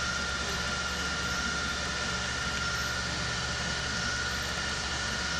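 Steady background hum and hiss with a faint high whine, unchanging throughout, with no distinct events.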